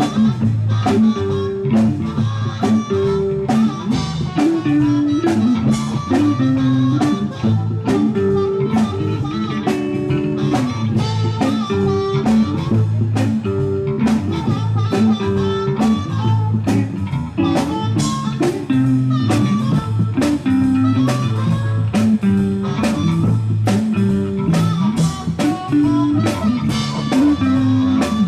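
Live blues band playing an instrumental passage: harmonica played into a microphone over electric guitar and a drum kit keeping a steady beat, with a repeating low riff underneath.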